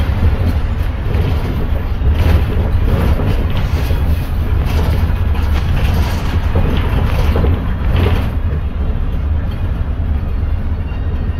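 Interior noise of a 2018 Daewoo NEW BS090 city bus on the move: the GL08P compressed-natural-gas engine's steady low rumble mixed with road and body noise inside the cabin.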